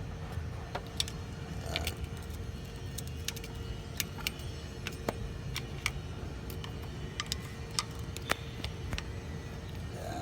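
Irregular metallic clicks and clinks of hand tools working on engine bolts, over a steady low rumble and a faint steady hum.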